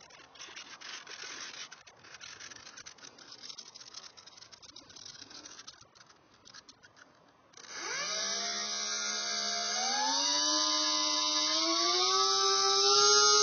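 Faint rustling, then a little past halfway the RC Icon A5 model seaplane's electric motor and propeller start up with a whine that rises in pitch in steps and grows louder as the throttle is opened.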